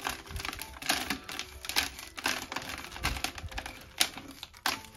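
Irregular clicks and scratches of a tool scraping loose granular bonsai soil from the surface of a pot.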